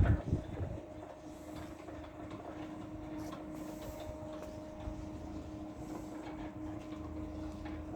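Electric sliding gate motor running with a steady hum as the gate rolls along its track, after a few heavy clunks at the start.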